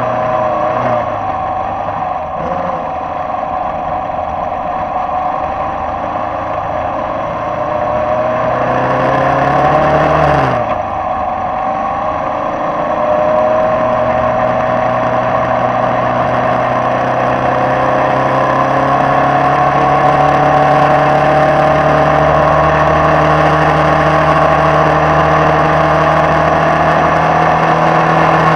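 Formula Vee racing car's air-cooled Volkswagen flat-four engine, heard onboard as the car drives away. The revs climb, drop sharply about ten seconds in, then rise slowly and steadily through a long pull.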